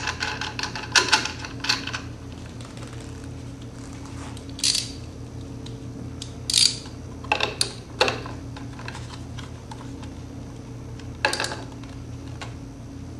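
Metal clicks and clinks of a socket, ratchet wrench and nuts being fitted onto the fan motor shaft: a quick run of clicks in the first two seconds, then single sharp clicks every second or two, over a steady low hum.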